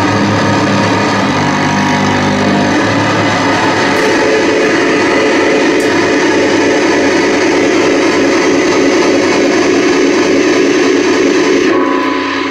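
Loud, dense drone-noise music from amplified electronics and instruments played live. Low tones step and shift in pitch for the first few seconds, then give way to a thick, steady wash of buzzing noise.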